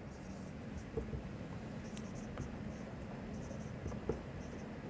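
Marker pen writing on a whiteboard: faint scratchy strokes in short runs, with a few soft ticks.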